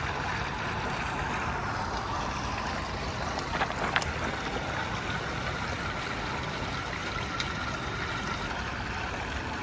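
Gray water draining steadily from an RV's gray tank through the sewer hose, a steady rush, with a light click about four seconds in.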